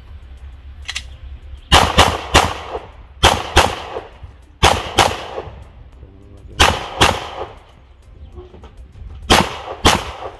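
A timed string of pistol shots, about eleven in all, fired mostly in quick pairs with pauses of about a second between groups. The last shot comes near the end.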